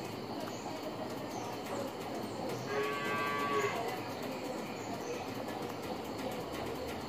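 A cow mooing once, a single call of about a second some three seconds in, over steady background noise.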